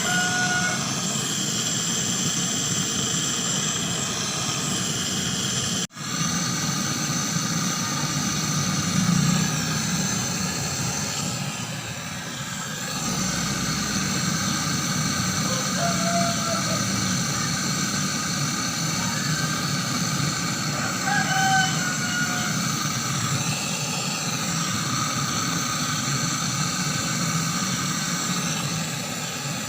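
Steady mechanical running with a low hum and a steady high whine, from refrigeration equipment working during a freon charge of a refrigerator; it cuts out for an instant about six seconds in. Chickens call faintly a few times.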